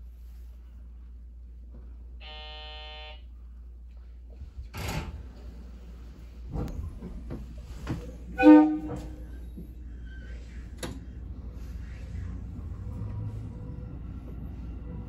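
Inside a JR Tokaido Line local train: a one-second electronic beep, then several sharp clicks and knocks, and a loud short tone about eight seconds in, all over the train's steady low hum. A low rumble swells near the end.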